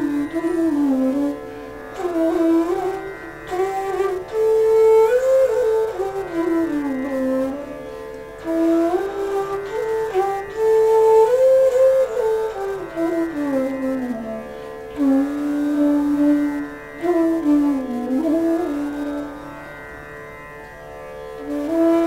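D-scale bansuri (Indian bamboo flute) playing a melodic line in Raag Megh Malhar, with gliding slides between notes, over a steady drone. The flute falls quiet for about two seconds near the end while the drone carries on.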